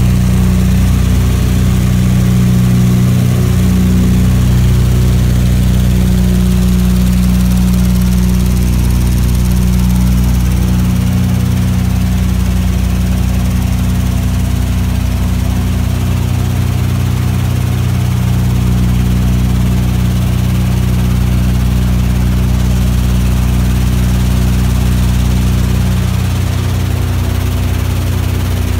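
Steady low drone of a WWII B-25 Mitchell bomber's two Wright R-2600 radial engines and propellers in cruise flight, heard from inside the fuselage.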